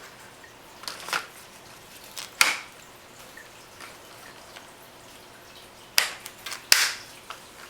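Sharp plastic clicks and knocks from a stroller's front swivel-wheel assemblies being slid onto the frame and snapped into place. About half a dozen separate snaps, the loudest about two and a half seconds in and twice near the end.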